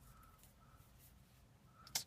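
Near silence: faint room tone, with one short click near the end.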